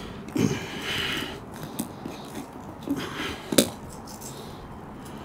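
Utility knife cutting through granule-surfaced rubber roofing membrane, with scratchy scraping and handling noise as a scupper fitting is pushed into the cut, and one sharp click about three and a half seconds in.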